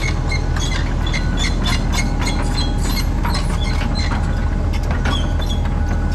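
Heavy earthmoving machine's diesel engine running steadily under work, with frequent metallic clanks and clicks from the tracks and working parts throughout.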